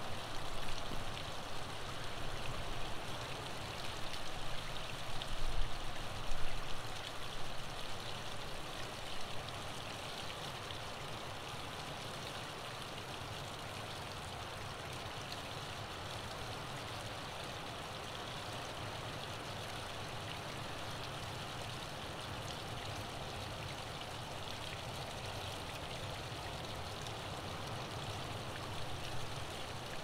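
Waterfall pouring steadily: a continuous rush of falling water. The level swells unevenly, with some low rumbles, through the first nine seconds or so, then settles into an even rush.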